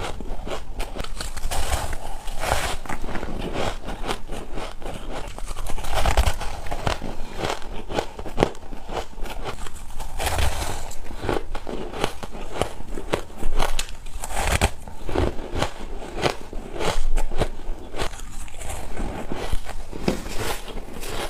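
A person biting and chewing mouthfuls of powdery, snow-like ice, a continuous run of quick irregular crunches and crackles.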